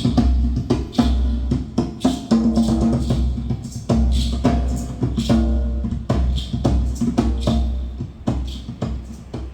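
Drum music played back through hi-fi loudspeakers driven by a tube power amplifier: quick drum and percussion strikes over deep bass. It fades gradually in the second half.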